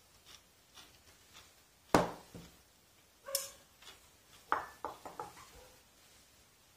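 Metal fork and knife clinking against a ceramic plate: a sharp clink about two seconds in, a ringing clink just over a second later, then a quick run of smaller clinks near the end.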